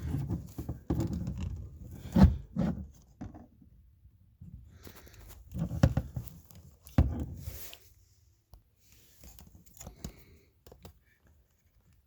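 Plastic clicking, knocking and scraping as the 2008 Nissan Rogue's rear window switch is worked loose by hand and its wiring connector's release tab is pushed to unplug it, with a few sharp knocks about two, six and seven seconds in.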